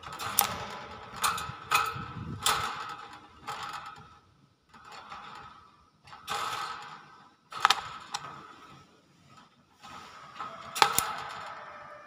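Common hill myna making a run of sharp, harsh clicking calls, about ten uneven bursts with short quiet gaps between them.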